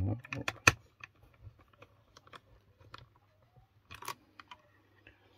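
Small screwdriver tightening a wire into the screw terminal of a relay module: scattered clicks and scrapes of the metal tip and plastic housing. The sharpest click comes a little under a second in, and another group of clicks comes about four seconds in.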